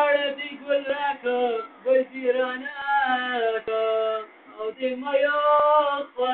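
A man singing a slow song in long held notes that waver and bend in pitch, with short breaks between phrases and no instrument clearly heard.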